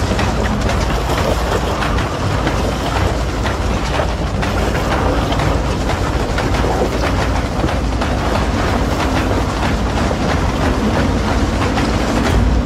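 Isuzu D-Max pickup driving slowly over rough off-road ground: a steady low engine rumble with a busy rattling clatter, a little louder near the end.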